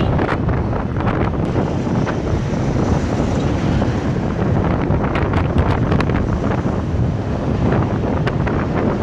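Wind buffeting the microphone of a moving motorcycle, a steady rushing noise with the ride's road and engine noise underneath.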